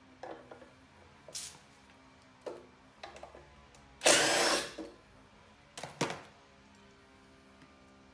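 Cordless drill running in one short burst about four seconds in, backing out a rear deck screw of a Razor E300 scooter while multi-grips hold the nut underneath. Lighter clicks and knocks of tools and screws being handled come before and after it, with a sharper knock about six seconds in.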